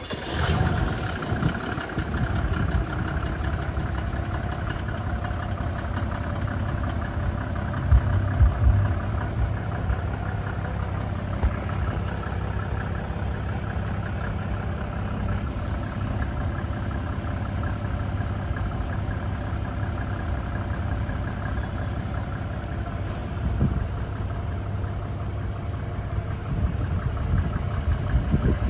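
Vehicle engine idling steadily, with a few low thumps about eight seconds in.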